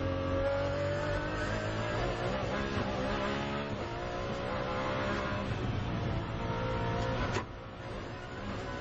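Ferrari 599XX's V12 engine heard from on board at racing speed, its pitch climbing and falling through the gears. About seven seconds in the engine note cuts sharply, then builds again near the end.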